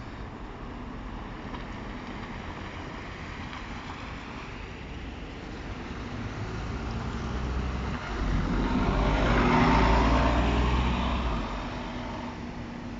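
Irisbus Agora S city bus driving past close by. Its engine rumble builds, is loudest about eight to eleven seconds in as the bus passes, then fades as it pulls away.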